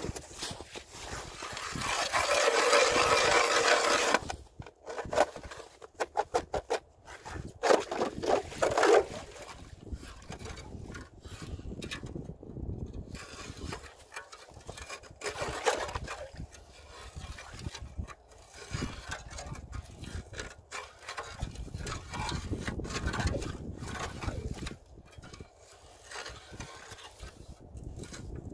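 Hand ice auger being turned into lake ice, its blades grinding and scraping through it. The loudest stretch is a harsh rasping about two seconds in, followed by a run of uneven crunches and then quieter, intermittent scraping.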